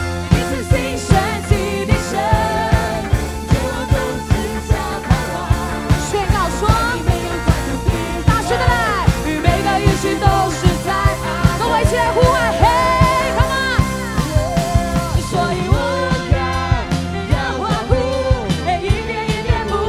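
Christian worship song: a voice singing a melody over a band with a steady drum beat.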